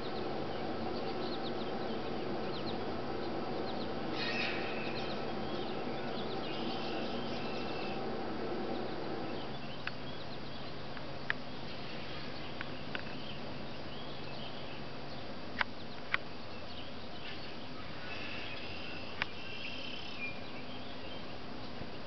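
Small songbirds chirping and calling in scattered bursts over a steady low hum, which stops about ten seconds in; a few sharp clicks come in the second half.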